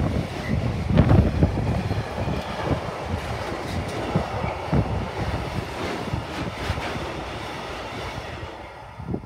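Container freight train wagons rolling past on the rails, wheels rumbling and clattering with irregular knocks, fading away as the last wagons go by; one last knock just before the end.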